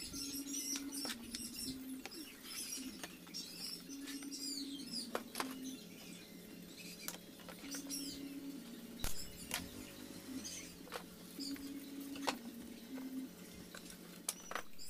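Pneumatic brad nailer firing several sharp, irregularly spaced shots into plywood panels, with small birds chirping throughout.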